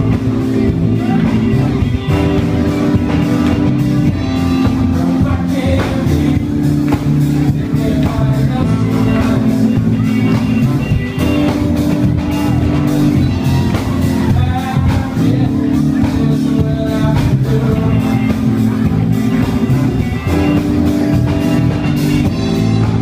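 Live band playing loud music, with a drum kit, trombones and singing.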